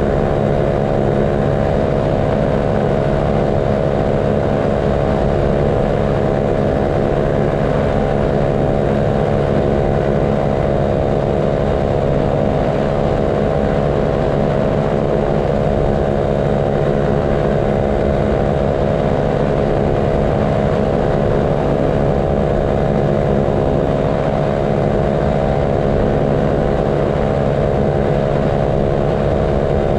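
Paramotor engine and propeller running at a steady throttle in flight, one unchanging pitch throughout.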